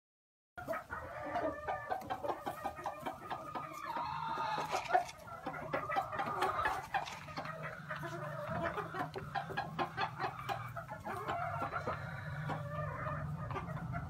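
A flock of gamefowl hens and roosters clucking and calling, with many short clicks mixed in. The sound starts abruptly about half a second in.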